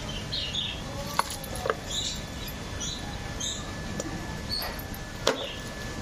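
Clear plastic wrap around a phone box being slit and handled with a small box cutter: rustling and a few sharp clicks, the loudest about five seconds in. Small birds chirp repeatedly in the background.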